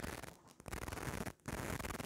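Close-miked chewing of fried chicken wing: a dense crackly noise that breaks off briefly twice.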